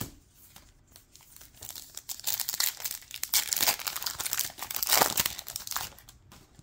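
Plastic trading-card pack wrapper crinkling and tearing as it is ripped open, a crackly rustle that starts about two seconds in and dies away near the end.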